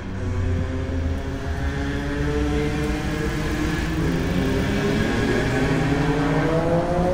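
A motor vehicle engine running steadily, its pitch rising gradually as it speeds up.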